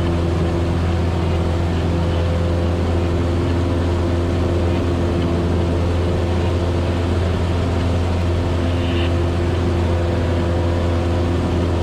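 Cessna's freshly factory-overhauled piston engine and propeller running at high power in the climb, a steady, even drone with no change in pitch, held at high throttle to break in the new engine.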